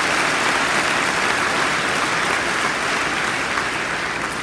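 Audience applauding, a steady clapping that begins to die down near the end.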